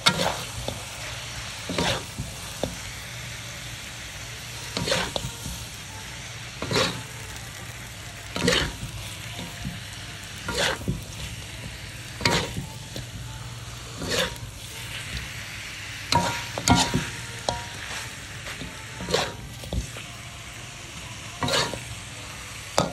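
Chicken frying in a pan with a steady sizzle, stirred with a spatula that scrapes or knocks against the pan about every two seconds.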